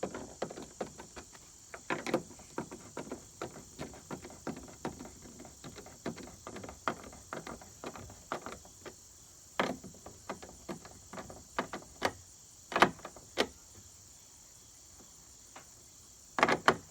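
Bolts on kayak landing-gear brackets being hand-tightened: irregular small clicks and knocks of the hardware, with a few louder knocks near the end. Crickets chirp steadily behind.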